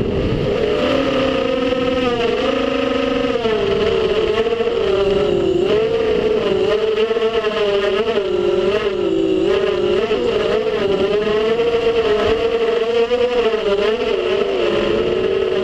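An FPV quadcopter's brushless motors and propellers whining loudly throughout. The pitch rises and falls continually as the throttle changes through low swerving flight, heard from the camera on the craft itself with a rush of air behind it.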